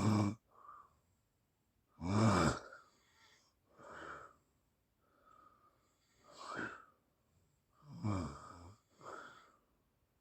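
A sleeping person snoring. A loud snore trails off at the start, louder snores come about two and eight seconds in, and fainter snores and breaths fall between them, roughly every one to two seconds.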